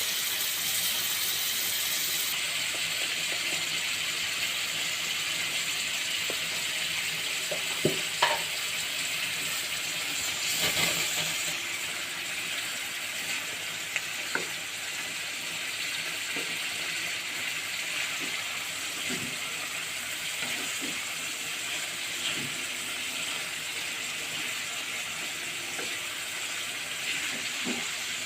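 Food frying in hot oil in a pan, sizzling steadily, with a few short knocks and scrapes of a spatula stirring it.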